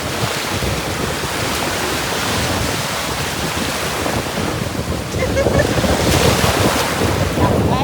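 Ocean surf breaking and washing on the beach, with wind gusting on the microphone.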